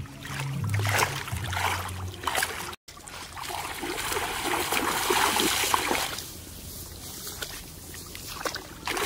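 Background music with a bass line for about the first two seconds, then, after a brief dropout, water splashing and sloshing as people wade through shallow paddy water, loudest a few seconds in and again near the end.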